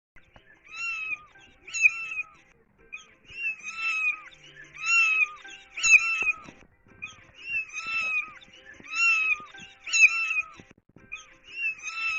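Kitten mewing over and over: short, high-pitched cries about once a second, each falling slightly at the end.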